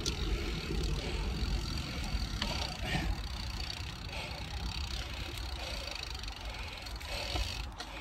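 Cervelo Aspero gravel bike on 650b wheels with 47c tyres rolling along a dirt trail: tyre noise and a steady low rumble, with a few sharp clicks and rattles from the bike. The noise eases off gradually as the bike slows.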